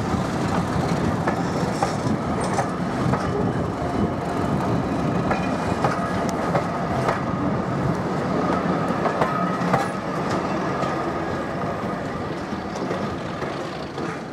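Heritage passenger coaches rolling slowly past, wheels clacking irregularly over rail joints with a thin wheel squeal now and then. The sound fades over the last couple of seconds as the train draws away.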